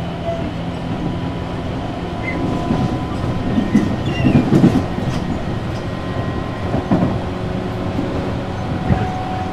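Tobu 8000 series electric train car heard from on board while running, with a steady rumble and hum and the wheels knocking over rail joints several times, in a cluster near the middle and again twice toward the end.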